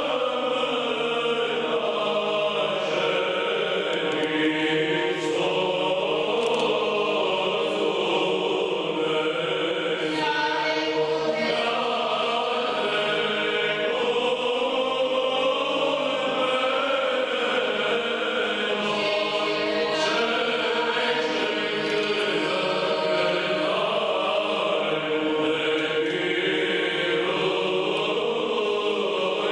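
Background music: a choir singing a chant.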